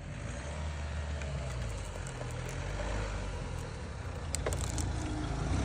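Mahindra Thar SUV's engine running at low revs as it drives slowly over grassy ground, growing louder near the end as it comes close.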